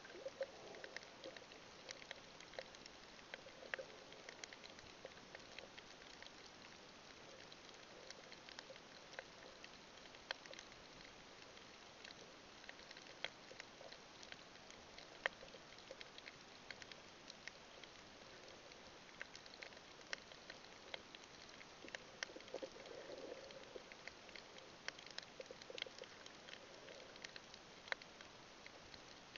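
Faint underwater ambience over a coral reef: a soft hiss scattered with sharp clicks and crackles, and a few muffled gurgles now and then.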